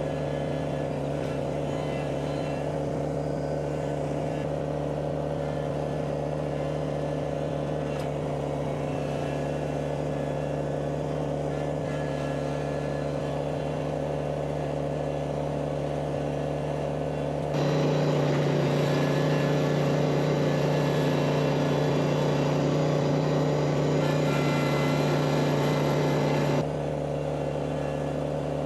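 Compact tractor's diesel engine running steadily at an even pitch. It grows louder for several seconds about two-thirds of the way through, then drops back.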